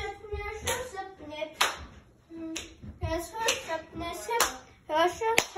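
Rhythmic hand claps, about one a second, over a person's voice.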